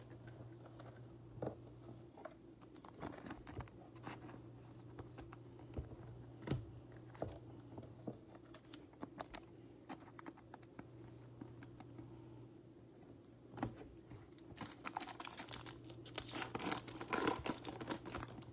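Trading cards being handled by hand: faint scattered clicks and slides of card stock, growing busier near the end, over a low steady hum.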